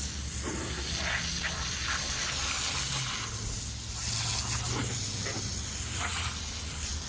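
Sawmill's engine running steadily with a constant hiss over it.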